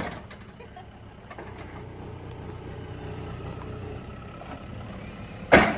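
Excavator's diesel engine running steadily, with one short, loud crash near the end as the bucket strikes a lawn mower.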